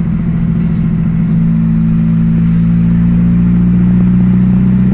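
Chevrolet Kadett's four-cylinder engine running through a straight-pipe exhaust with no mufflers, a steady low drone heard from inside the cabin while driving. The drone grows louder and smoother about a second in as the car pulls under throttle.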